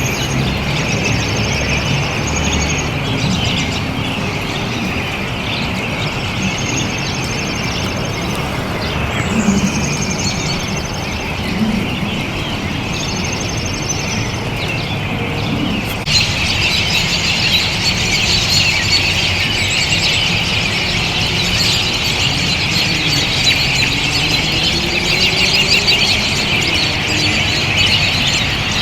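A large flock of American robins calling, with many overlapping high, thin calls and chirps over a low steady rumble. About halfway through, the calling becomes denser and louder.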